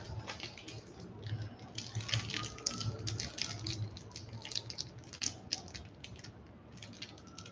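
Small plastic packaging wrapper crinkling and crackling in quick, irregular clicks as it is handled and pulled open.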